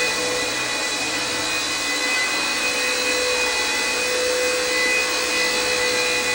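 Small electric RC helicopter (WLtoys V931 AS350) hovering: a steady high motor whine with rotor hiss, holding an even pitch.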